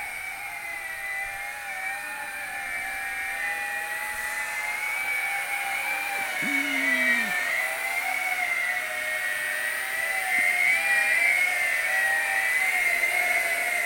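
Small electric motors and propellers of a WLtoys Q202 amphibious RC drone whining in flight. The pitch wavers up and down as the throttle shifts.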